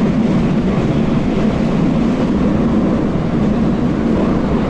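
Steady running noise of a JR West 221 series electric train heard from inside the car, a low rumble of wheels on rail at speed. An oncoming train passes close alongside near the start.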